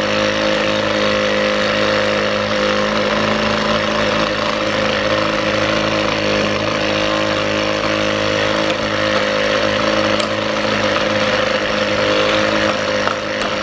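A small electric motor running steadily with a buzzing hum over a hiss.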